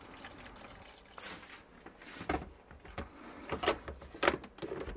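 Water trickling into the tank of a siroca coffee maker with a built-in bean grinder, then a string of irregular clicks and knocks as the mill container and parts on top of the machine are handled and set in place.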